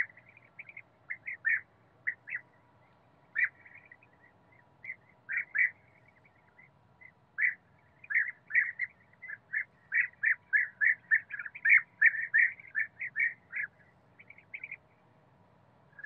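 European bee-eaters calling: short, repeated notes, scattered at first, then coming quickly, about three or four a second, through the middle of the clip before thinning out near the end.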